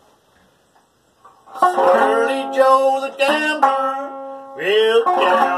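Banjo being picked: after a near-quiet start it comes in about a second and a half in with a run of sharp plucked notes, with some notes sliding upward near the end.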